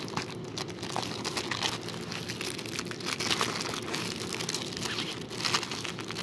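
Clear plastic wrapping crinkling as it is handled and pulled at to unwrap a tablet case: a continuous, irregular crackle.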